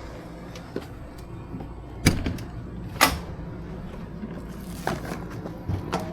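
Two sharp knocks about a second apart, with a few lighter clicks and clatters near the end, over a steady low hum.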